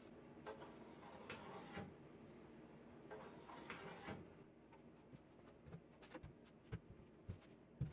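Faint scrapes in the first half, then scattered light clicks and knocks: quiet handling noises in a workshop.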